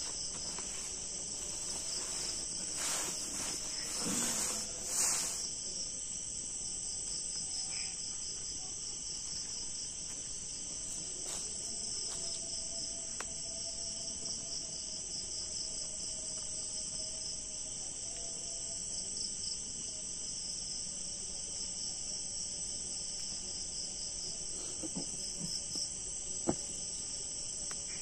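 Crickets and other night insects chirring in a steady, finely pulsing high-pitched chorus. Rustling during the first few seconds, and a single sharp tap near the end.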